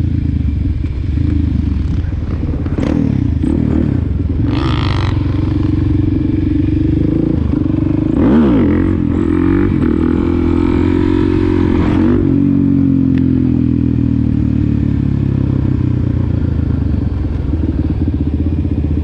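Motorcycle engine running steadily, its pitch dipping and rising again about halfway through, with a brief hiss of noise shortly before.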